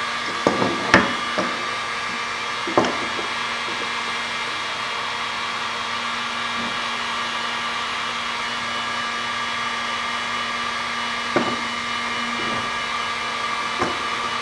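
Heat gun blowing steadily with a constant hum and whine while it heats the cut ends of a polycord round belt until they start to melt. A few short light knocks sound about a second in, near three seconds, and twice near the end.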